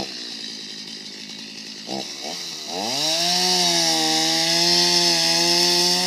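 Two-stroke chainsaw running at low speed, then revved up about three seconds in and held at high speed as it cuts through the trunk of a Christmas tree.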